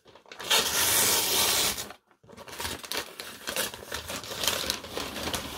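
Brown paper mailer being torn open in one long rip of about a second and a half, starting about half a second in. After a short pause comes a run of crackling and crinkling as the paper is handled and a boxed item is slid out.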